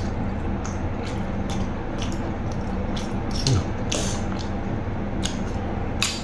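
Spoon and fork clicking and scraping against a metal tray, a dozen or so scattered sharp clicks over a steady low hum.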